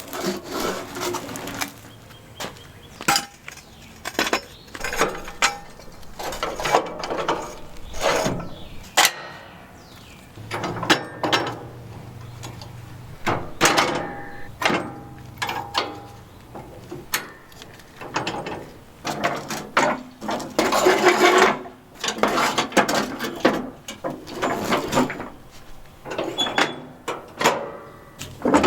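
Irregular clanks, knocks and scrapes of hand tools and metal tractor parts being handled, as a garden tractor's mule drive and mower deck are fitted.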